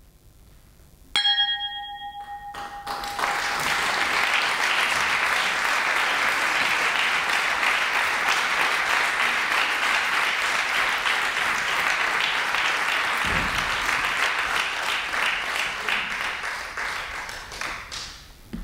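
A single struck ringing tone about a second in, then audience applause that holds steady for about fourteen seconds and fades near the end.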